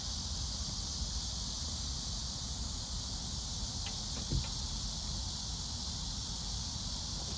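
Steady insect chorus, high and even, over a low rumble of wind on the microphone. A few light clicks about four seconds in, from the folding camp chair being handled.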